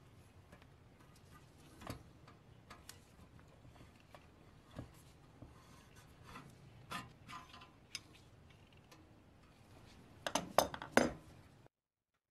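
Small metallic clicks and taps from a hand-turned C-clamp press worked against a pressed-steel toy truck body, with a quick cluster of sharper, louder metal clinks near the end.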